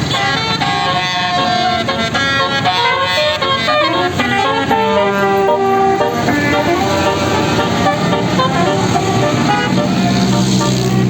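Bus 'telolet' multi-tone horn of the Basuri type playing a melody: a quick run of short stepped notes, then longer held notes, with a rush of noise near the end.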